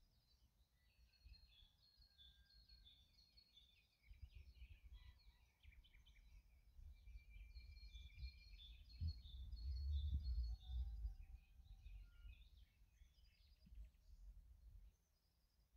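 Dawn chorus of several songbirds in a meadow: overlapping chirps, trills and short whistled notes. From about four seconds in, an uneven low rumble joins them, strongest near the middle.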